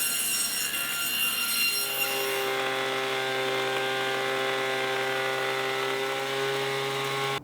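Woodworking power tool machining a board: a high cutting whine gives way about two seconds in to a steady running hum as the machine runs unloaded, then cuts off suddenly.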